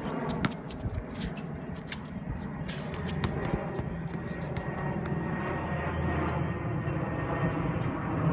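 A low, steady engine drone that grows gradually louder from about three seconds in. Over it, in the first few seconds, come a few sharp knocks of a basketball bouncing on the court.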